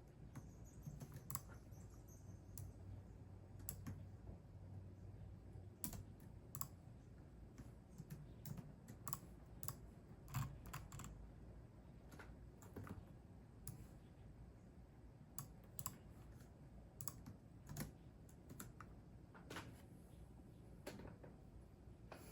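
Computer keyboard being typed on: soft, irregular keystrokes in short runs, with pauses of a second or two between them.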